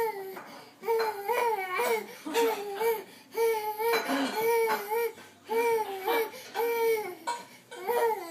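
A toddler's voice in a string of short, high-pitched 'ah' calls, about three every two seconds, jolted out in time with bouncing on an inflatable Rody hopping horse.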